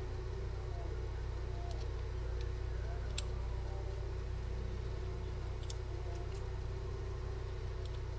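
Steady low machine hum in a metal shop, with a few light metallic clicks as small machined aluminium parts are handled and pulled from a fixture.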